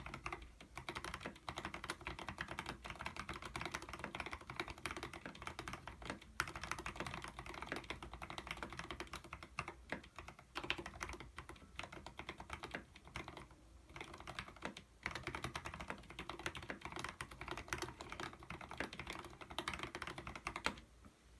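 Continuous typing on a mechanical keyboard with Zeal PC Zealios tactile switches, fully lubed with Krytox 105 on the springs and a 105/205 mix on the sliders, giving a rapid stream of keystrokes. There are a couple of short pauses midway and one louder keystroke near the end.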